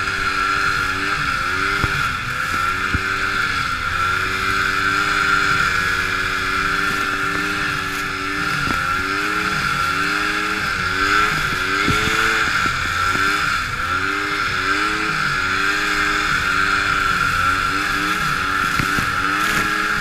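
Polaris XLT 600 snowmobile's two-stroke engine running hard through deep powder, its revs rising and dipping again and again as the throttle is worked, over a steady high whir.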